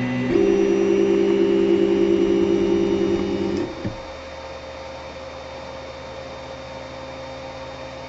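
3D printer's stepper motors whining at steady pitches, stepping up in pitch shortly after the start and stopping about three and a half seconds in. After that only the printer's steady fan hum remains.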